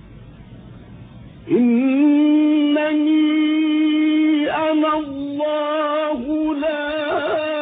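A male reciter's high, sustained voice in melodic Quranic recitation: it enters about a second and a half in and holds long drawn-out notes with ornamental turns. Before it, only a low hiss from the old recording.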